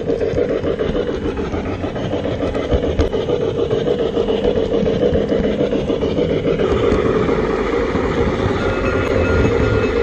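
LGB IVK 145 model narrow-gauge steam locomotive running with its train, its mfx sound decoder giving a continuous rasping steam sound over the rolling noise of the wheels on the track. A faint steady tone comes in near the end.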